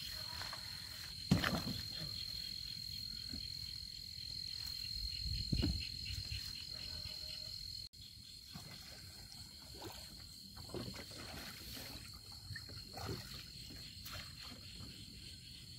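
Insects trilling steadily at night in one high, pulsing tone, with a couple of dull thumps. About eight seconds in the sound cuts and turns quieter, with scattered faint knocks while a small boat is pushed along with a bamboo pole.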